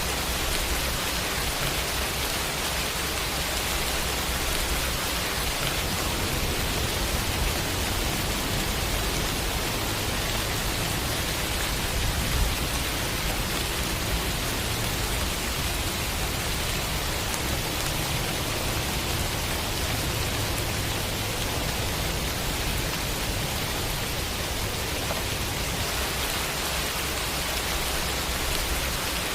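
Steady rain sound effect: an even hiss of rainfall with a low rumble underneath, swelling slightly in the middle and easing near the end.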